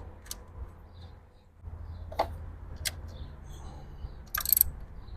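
Scattered light clicks and knocks from parts being handled in a car's engine bay, with a short louder clatter near the end, over a low steady rumble.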